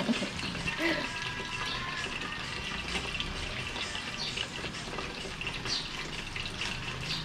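Chicken nuggets deep-frying in a saucepan of hot oil: a steady sizzle with scattered crackles.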